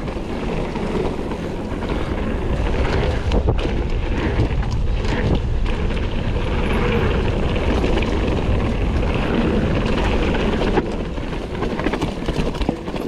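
Wind buffeting the microphone of a mountain biker's action camera, over tyre noise on a dirt trail and frequent short clatters and knocks from a Kona Process 153 full-suspension mountain bike being ridden over rough ground.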